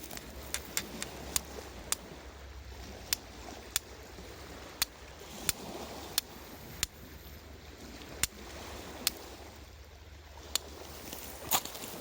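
Small wood campfire crackling: sharp single pops at irregular intervals over a steady low hiss.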